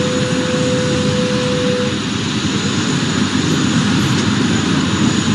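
Jet aircraft engine noise, a loud and steady rush. A steady tone within it stops about two seconds in.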